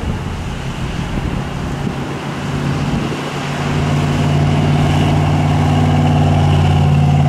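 1969 Dodge Super Bee's V8 engine running as the car drives up the road and past, growing louder over the first few seconds and then holding a steady pitch at constant revs.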